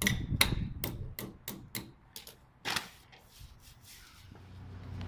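Sharp clicks and knocks of trampoline hardware being handled and fitted, about four a second for the first two seconds, with one longer scrape a little past the middle. A steady low hum comes in near the end.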